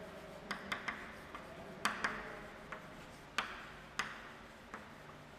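Chalk writing on a chalkboard: about ten sharp, irregular taps as the chalk strikes the board, each followed by a short faint scrape.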